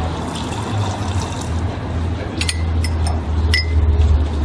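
Coffee being made: liquid pouring over a steady low hum, with three light clinks of crockery in the second half.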